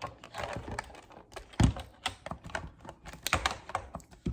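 Irregular plastic clicks and rattles from a small portable air compressor being handled while its stuck power cord is tugged out of the storage compartment in its body, with a heavier knock about a second and a half in.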